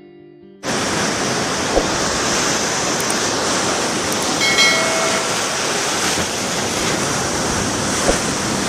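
Loud steady rushing noise, like wind or water, starting abruptly about half a second in, with a brief faint call near the middle and a couple of light knocks.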